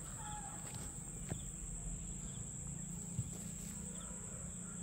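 Crickets trilling steadily in one continuous high-pitched drone, over a low rumble, with a couple of faint ticks.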